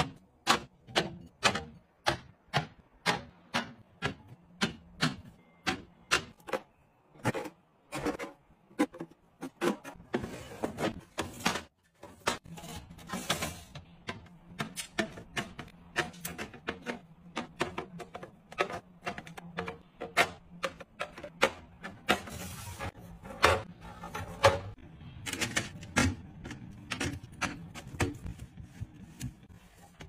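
Glass bottles and clear plastic containers clinking and clacking as they are set onto the glass shelves of a refrigerator: a run of sharp taps, about one or two a second at first, then denser and more uneven.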